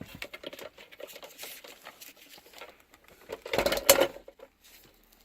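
Plastic wiring-harness plugs and cables being handled and pushed on: a string of small clicks and rattles, with a louder clatter about three and a half seconds in.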